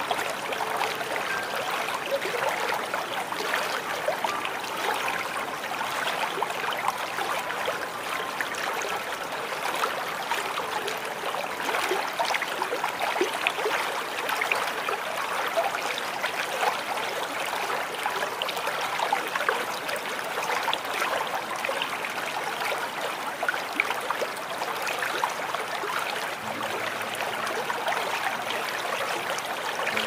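Small waterfall: water splashing and trickling in a steady, even rush. A faint low steady tone comes in near the end.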